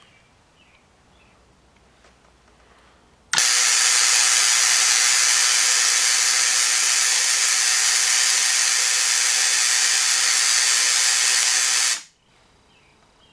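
Tesla coil firing, its spark discharge making a loud, steady buzzing hiss that switches on abruptly about three seconds in and cuts off near the end, after roughly nine seconds.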